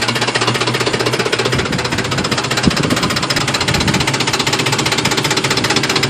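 2005 Ford F-150's 5.4-litre Triton V8 idling with a loud, rapid, even knocking. It is a knock that comes only at idle and very low revs and has made the engine stall at idle.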